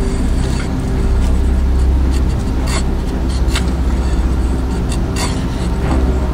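Background music with a deep, steady bass drone, over which a large camp knife scrapes a few times as curls of wood are shaved off a stick to make a feather stick.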